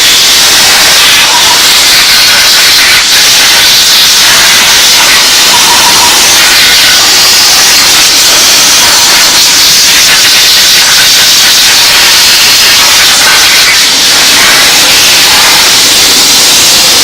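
Minimax steam cleaner's steam jet hissing loudly and steadily as it cleans brake dust and grime off a part.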